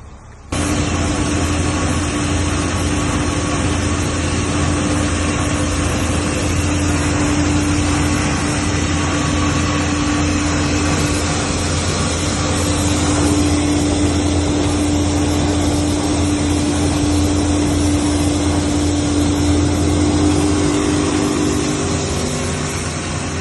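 Commercial combined rice milling machine running steadily, a constant mechanical hum and hiss with a steady tone, starting suddenly about half a second in.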